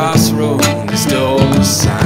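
Background music: a song with instruments over a steady beat.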